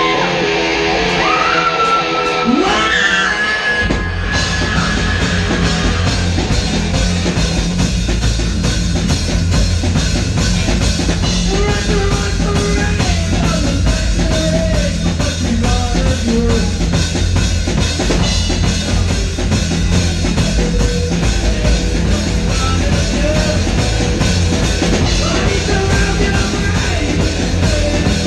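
Live rock band playing loud: electric guitar on its own with a bending phrase at first, then about four seconds in the drum kit and bass come in and the full band plays on.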